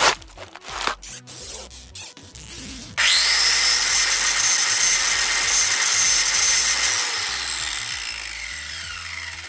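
Plastic wrapping crackling and tearing in short bursts. About three seconds in, a loud, steady rushing hiss starts suddenly and fades away over the last couple of seconds.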